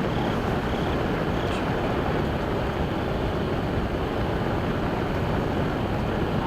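A tightly wound reel of 35mm nitrate film burning fiercely from the inside out: a steady, even rushing noise from the flame, like a jet or rocket engine, as the compressed reel drives its gas out.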